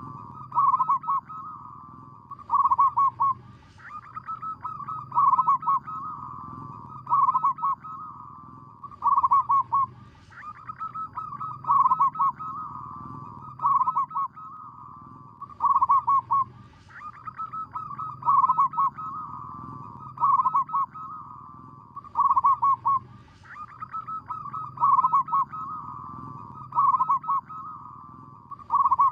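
Zebra dove (perkutut / merbok) cooing its rolling, staccato song. Phrase follows phrase about every two seconds, with a slightly longer pause after every third phrase.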